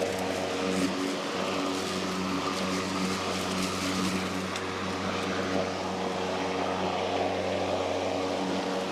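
Worx Nitro WG761E cordless lawnmower running steadily while mowing in push mode: an even hum from its battery motor and spinning blade, holding one pitch throughout.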